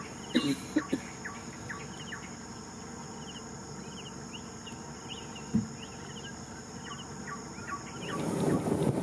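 Tropical rainforest ambience: a steady high insect drone with many short, repeated bird or insect chirps. A few sharp knocks come about half a second in and again about halfway through, and near the end a rushing noise of wind and boat builds up.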